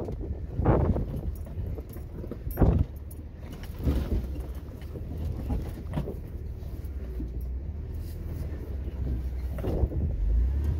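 Jeep engine running low and steady as it creeps over rocks down a steep slope, heard from inside the cab, with several sharp clunks and a jangling rattle as it rolls over the rocks.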